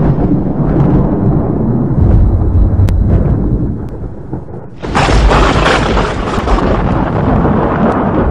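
Loud, continuous rumbling noise with heavy bass, turning brighter and harsher about five seconds in.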